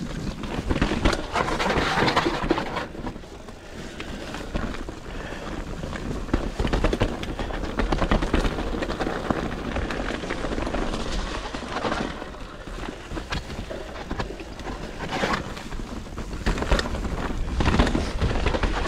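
Commencal Meta SX mountain bike rolling fast down a wet, rough dirt trail. The tyres rush over dirt and rock while the bike rattles and knocks steadily over roots and bumps, with a low rumble underneath.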